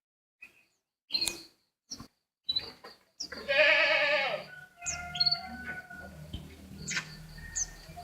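A bird's strange call: a few short chirps, then a loud, wavering, bleat-like cry about three seconds in lasting about a second and a half, followed by fainter calls and sharp chirps.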